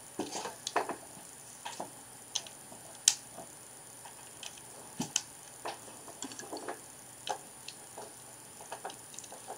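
Plastic Lego bricks clicking and clattering as pieces are picked out and pressed together, in scattered irregular clicks, one louder than the rest about three seconds in.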